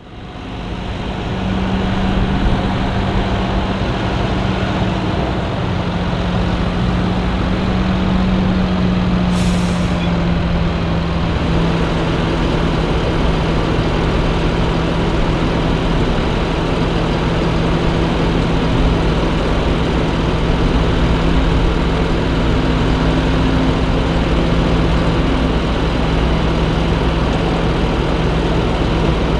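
Diesel engines of a Fendt 716 Vario tractor and a CAT M314F wheeled excavator running steadily, a constant low engine hum that fades in over the first second or two. A short hiss of air about ten seconds in.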